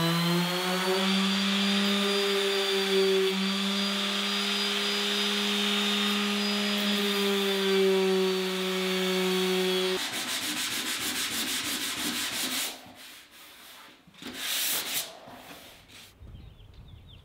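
Random orbital sander running steadily against a Baltic birch plywood bowl: a constant motor hum over the rasp of the pad on the wood. About ten seconds in, the sound changes abruptly to a harsher, rapidly pulsing buzz, which cuts off a few seconds later.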